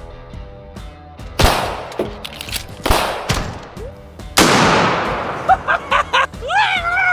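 Gunshots over background music: three loud shots or blasts about a second and a half apart, the last with a long fading tail, then a few quicker cracks. A man's voice rises and falls near the end.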